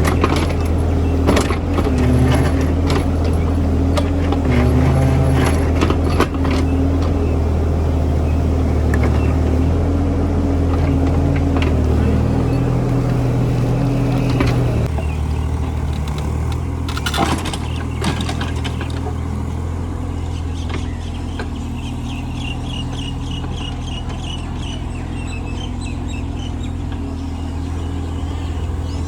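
Diesel engine of a mini excavator running under load, its pitch wavering, with knocks and clatter from the digging for about the first half. About halfway through it settles to a steadier, slightly quieter run.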